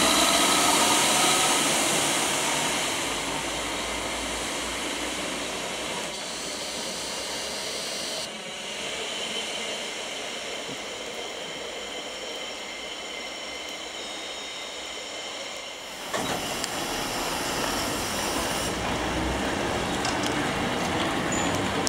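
An ÖBB Desiro diesel railcar pulling away, its engine note rising and then fading over the first few seconds. After a quieter stretch of a distant train, an old blue electric railcar of the Steiermärkische Landesbahnen rolls past close by, running steadily with a few sharp clicks.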